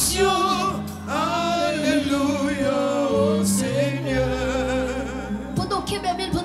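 Gospel worship singing through a microphone and PA, a young voice leading with choir voices, over steady held accompaniment chords. The lead voice wavers in a wide vibrato about halfway through.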